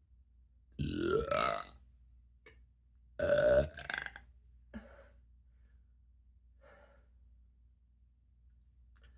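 A person belching up gas from carbonated ginger ale. The first burp, about a second in, rises in pitch. A louder, steady-pitched burp follows about three seconds in, with a short one right after it and a faint small one a second later.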